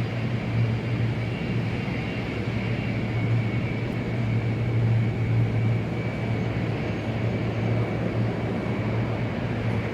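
Large-airport ambience: steady jet aircraft engine noise, a low hum under a thin high whine, with no sudden events.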